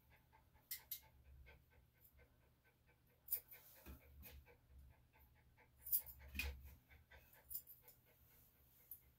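Yorkshire Terrier–Maltese mix panting quickly and steadily, with a handful of sharp snips of grooming scissors trimming the fur on its front foot.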